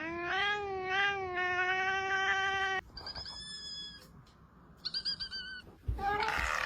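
A cat giving one long, wavering yowl lasting nearly three seconds, followed by a few short, higher-pitched calls.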